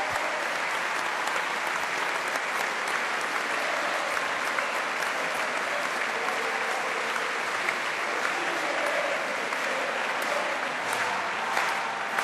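Sustained applause from a large audience: dense, steady clapping that runs on without a break.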